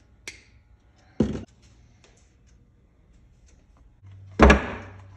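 Handling noise while a fuel line is fitted to a small plastic fuel tank on a wooden workbench: a light click, a dull thud about a second in, and a louder thud with a short ring near the end.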